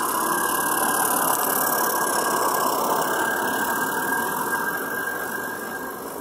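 Regner Konrad live-steam garden-railway locomotive running past close by, its steam exhaust mixed with the wagons rolling over the track. The sound is loudest early and fades over the last couple of seconds as the wagons go by.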